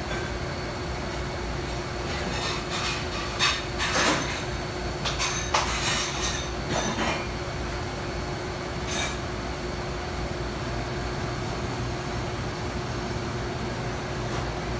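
Steady hum of commercial kitchen ventilation, with a cluster of short clicks and clatters between about two and a half and seven seconds in, and one more near nine seconds.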